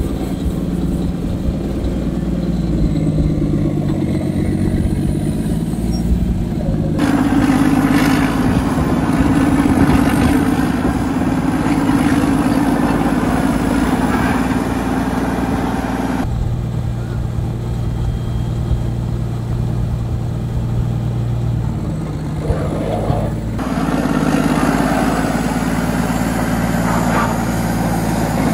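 Old Caterpillar D8 bulldozer's diesel engine running steadily. Its sound shifts abruptly three times, about a quarter of the way in, about halfway and about four-fifths of the way through.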